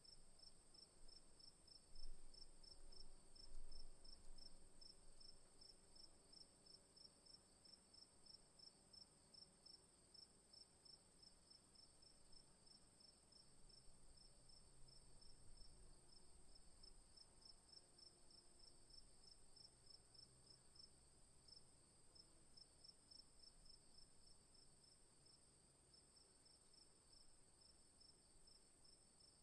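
Crickets chirping in the afternoon: a steady high trill with a quicker, evenly pulsed chirping just below it. Two soft low bumps come about two and four seconds in.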